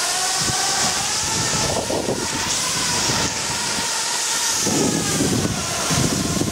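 Skis and a towed pulk sled gliding downhill over snow: a steady hiss with a faint wavering whine above it. Wind buffets the microphone more strongly from about five seconds in.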